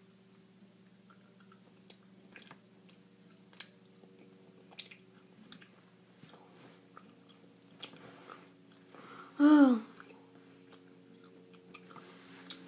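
A person chewing soft jelly candy with the mouth, quietly, with scattered small wet clicks. About nine and a half seconds in comes a short falling groan from the voice, the loudest sound.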